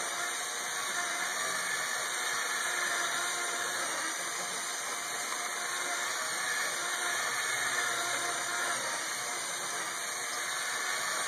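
Small LEGO electric motor driving the ride's plastic Technic gear train, running with a steady whir as the platform and cars turn.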